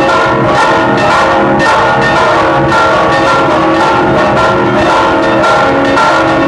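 Church bells pealing in a repique, several bells struck in a rapid, steady rhythm of about two strikes a second, their ringing tones overlapping.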